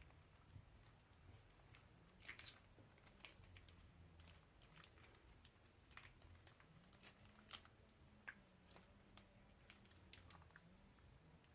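Faint, scattered crackles and pops of crunchy, bead-filled slime being squeezed and worked by hand.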